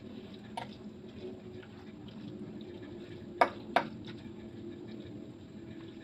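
Metal fork clinking twice against a ceramic bowl about three and a half seconds in, with a fainter tap near the start, as noodles are worked in the bowl. A steady low hum runs underneath.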